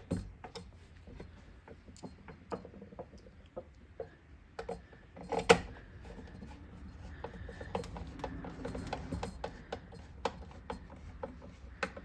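Small screws being driven in by hand with a screwdriver to fasten a cover on a fire alarm panel: scattered light clicks and scraping of the screwdriver in the screw heads, with one louder click about five and a half seconds in.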